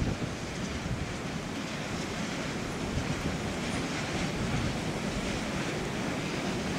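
Wind buffeting the microphone, a steady low rumbling hiss that covers whatever the car makes as it rolls away.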